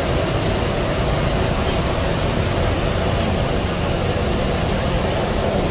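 Steady, loud background rumble and hiss that keeps an even level throughout, with no distinct knocks or voices standing out.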